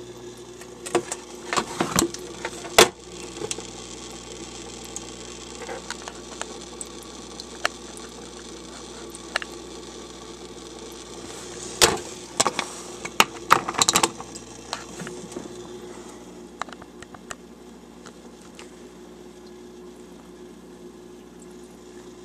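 Aquarium filter running with a steady hum, its impeller audibly spinning, a noise the owner says it should not make and blames on something going wrong with the impeller. Sharp clicks and knocks come in clusters about 1 to 3 seconds in and again around 12 to 14 seconds in.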